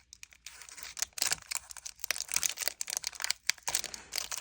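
Crinkling and rustling of a Pokémon booster pack's foil wrapper and cards being handled, in many short irregular strokes.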